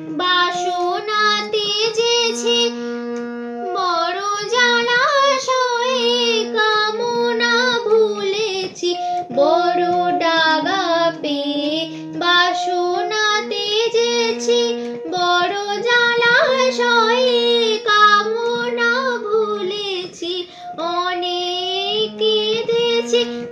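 A female voice singing a Bengali Shyama Sangeet devotional song with ornamented, gliding melody lines, over steady held notes from a keyboard instrument.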